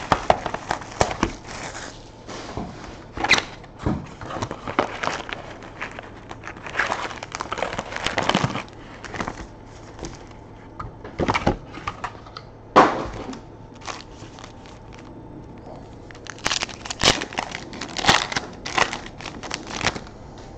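Plastic shrink-wrap and foil card packs crinkling and tearing as a sealed hobby box of trading cards is unwrapped and emptied. The crackling comes in irregular bursts, with sharp knocks and clicks between them.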